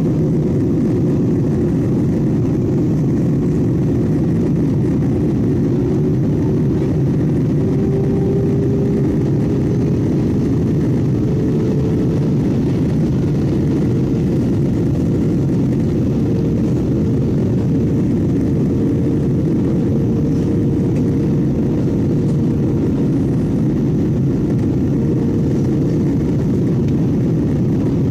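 Cabin noise of a jet airliner on approach with flaps extended: a steady roar of engines and rushing air. A faint tone rises slightly about a quarter of the way in and then holds.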